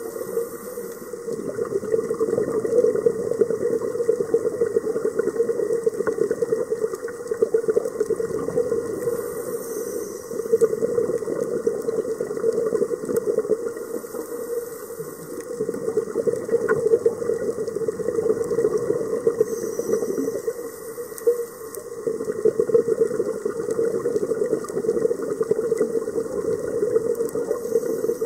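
Underwater scuba breathing heard through the camera housing: a short regulator hiss on each inhale, then a long burbling rush of exhaled bubbles, repeating about every five to six seconds.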